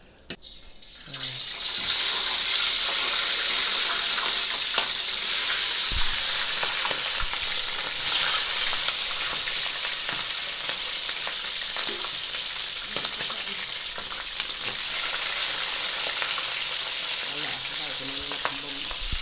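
Chicken pieces frying in hot oil in a pan: a steady sizzle with scattered crackles that starts about a second and a half in.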